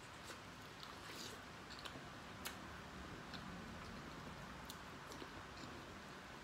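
Close-up chewing of corn on the cob: faint, scattered wet mouth clicks and kernel crunches, with one sharper click about two and a half seconds in.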